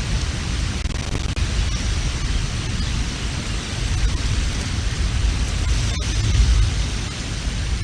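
Strong wind rushing and buffeting the outdoor camera's microphone, with a deep rumble that swells and falls in gusts; the strongest gust comes about six seconds in.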